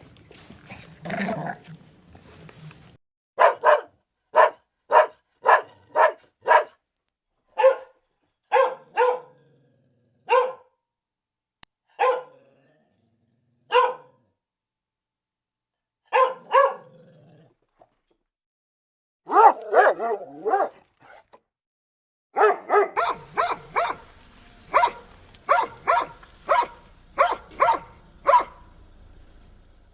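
Dog barking: runs of short sharp barks, about two a second, broken by pauses, with a dense burst of barking near the end.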